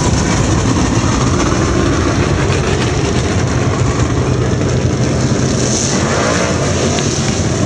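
Several dirt-track stock car engines running together in a steady, loud drone.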